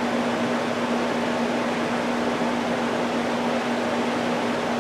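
Steady background hum and hiss, with one constant low tone and no other events.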